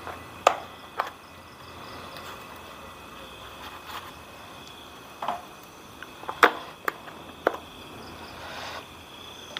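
Scattered sharp taps and clicks, about half a dozen, from a sachet and a metal spoon being handled over a plastic mug on a camp table; the loudest comes a little past the middle. A steady high trill of night insects runs underneath.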